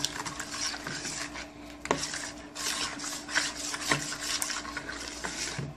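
A spoon stirring a runny milk-and-yeast dough mixture in a plastic bowl, scraping and rubbing against the bowl, with a couple of sharper knocks about two and four seconds in.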